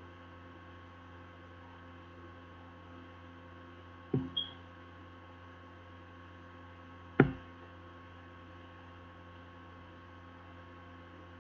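Steady electrical mains hum, broken by a few sharp knocks: a quick double knock about four seconds in and a louder single knock about seven seconds in.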